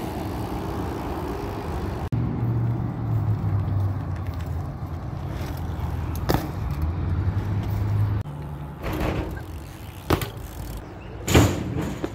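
BMX bikes ridden on asphalt: a steady low rumble of tyres and street traffic, broken by three sharp knocks as the bike hits the pavement. The loudest knock comes near the end.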